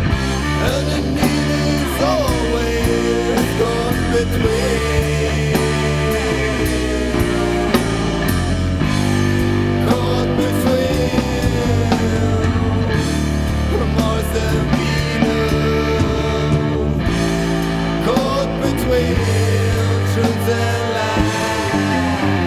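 Rock music from a band: electric guitar, bass and drums playing steadily with a regular beat.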